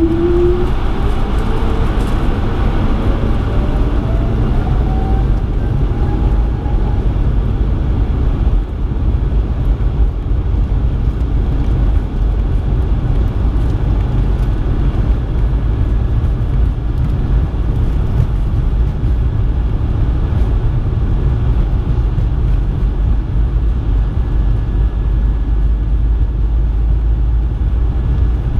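Cabin noise of a Bombardier CS100 on its takeoff run, its Pratt & Whitney PW1500G geared turbofans at takeoff power: a loud, steady low rumble. A whine rises in pitch over the first several seconds and then fades.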